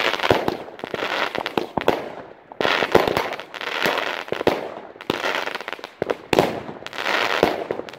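Mirnovec Pirotehnika 'Tip Top' firework shooting and bursting into white crackling stars. It comes in repeated waves of sharp bangs, each trailing into about a second of dense crackle, with short lulls between.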